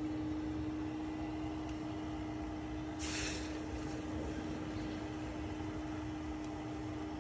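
Steady mechanical hum with a constant drone and a low rumble, broken by a short hiss about three seconds in.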